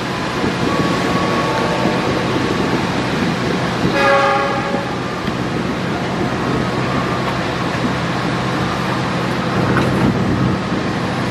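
Passenger train running at speed with a steady rumble of wheels on rail. About four seconds in, a locomotive horn sounds one blast of about a second.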